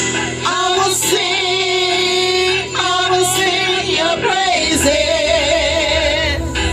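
Music with a woman singing a held, bending melody over a steady backing.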